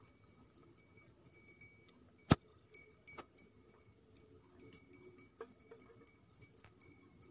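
A sharp click about two seconds in, then scattered fainter clicks and taps, over a faint steady high-pitched whine.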